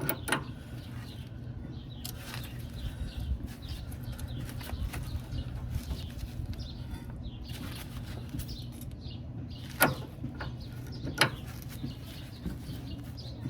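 A few scattered metallic clicks and taps, two of them sharp and loud about ten and eleven seconds in, as a stuck outer tie rod end is worked loose by hand. Birds chirp in the background over a steady low hum.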